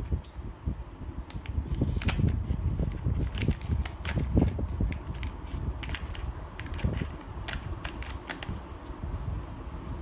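Product packaging being handled and opened: a run of irregular crackles and clicks over a low rumble.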